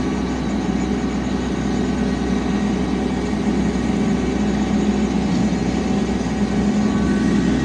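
Farm tractor engine running steadily under load while pulling a bush hog rotary cutter, a continuous droning hum.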